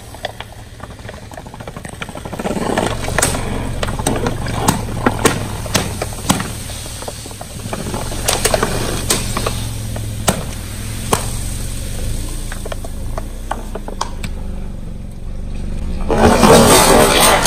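Car tyre rolling slowly over soda-filled plastic bottles and water balloons: a run of sharp cracks and pops as the bottles crush and the balloons burst, over the car engine's steady low running. A louder noisy rush comes near the end.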